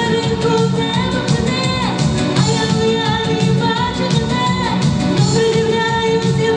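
A girl singing a lively pop song into a microphone over backing music with a Latin-style beat, her voice sliding between notes a couple of times.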